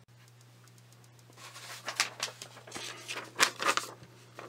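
A sheet of paper rustling and crackling as it is picked up and handled, in a string of short crinkles starting about a second and a half in and lasting a couple of seconds.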